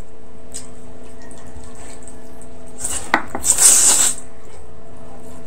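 Close-up wet eating sounds: a person chewing and smacking on braised pork knuckle, with a louder burst of wet smacking and clicks about three seconds in. A steady background hum runs underneath.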